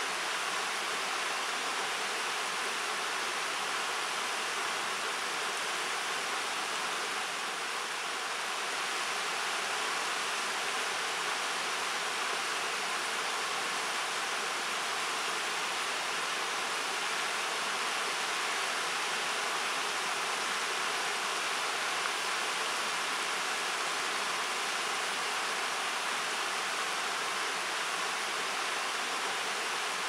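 Shallow river rushing over rocks and cobbles in a riffle: a steady, even hiss of running water.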